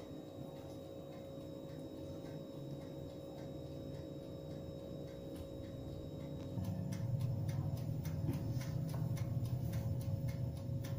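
Mechanical dial timer of a small electric toaster oven ticking rapidly and evenly as it counts down the baking time. A steady hum runs underneath and gets louder about six and a half seconds in.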